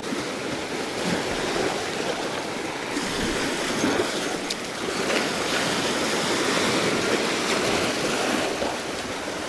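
Sea water washing around shoreline rocks: a steady rushing of small waves, with a faint click about four and a half seconds in.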